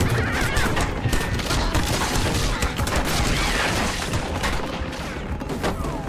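Cartoon sound effects of many tin cans clattering and striking in a rapid, dense barrage over a low rumble, with music underneath.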